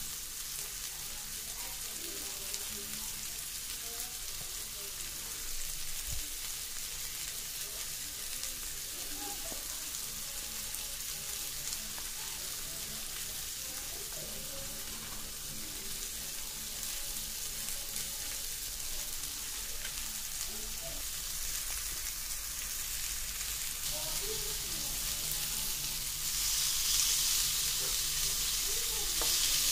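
Wagyu beef burger patties sizzling on the ribbed plate of an electric grill, a steady frying hiss. It gets louder near the end as a browned patty is turned over with tongs.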